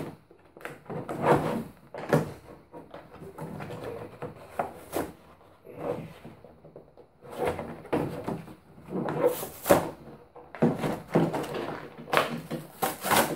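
Clear plastic blister packaging and cardboard backing of a boxed action figure being handled and pulled apart: irregular rustles and scrapes, some sharper than others.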